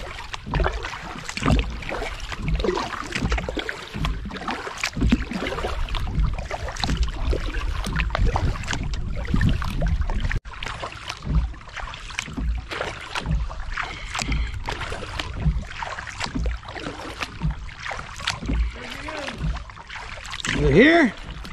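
Paddle strokes beside a kayak, water splashing and dripping off the blade stroke after stroke.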